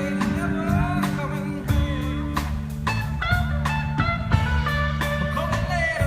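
Blues-rock music with electric guitar, a steady beat and a singing voice.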